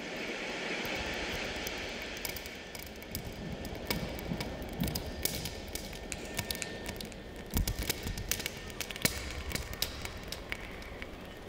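A swell of airy noise that fades in the first couple of seconds, followed by scattered sharp taps and clicks with a few dull thuds.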